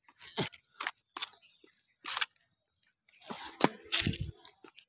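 Hurried footsteps on a paved road together with camera handling noise: irregular sharp scuffs and knocks, densest and loudest about three to four seconds in.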